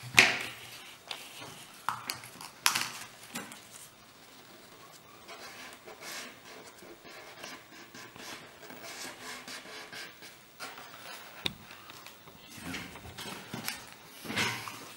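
Blue masking tape being pulled off the roll in short, sharp rips and rubbed down with the fingers over a plastic servo frame on a composite wing; the loudest rip comes just after the start.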